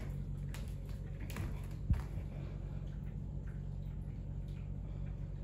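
Quiet room tone: a steady low hum with a few light clicks and knocks, the sharpest about two seconds in.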